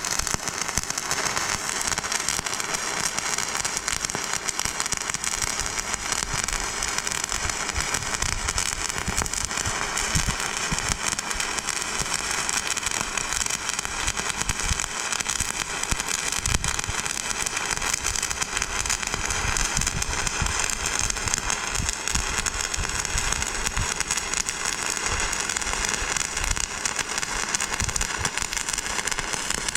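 Stick welding: the electrode's arc crackling steadily and without a break.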